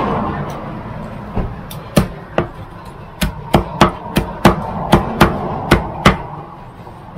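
Meat cleaver chopping a grilled chicken on a thick wooden chopping block: a dozen or so sharp chops, about two to three a second, starting after a second and ending about a second before the end.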